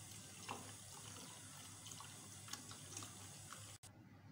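Faint pouring and stirring: a thin stream of dry-fruit-and-water mixture trickling into hot milk in a steel pot while a wooden spatula stirs it, with a few light clicks. Cuts off suddenly near the end.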